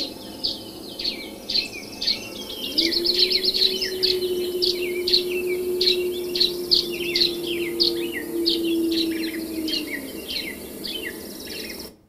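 Many songbirds singing at once, with a wolf howling in the background. One howl fades out right at the start, and a second long howl rises in about three seconds in and holds one steady pitch until about ten seconds. The recording cuts off near the end.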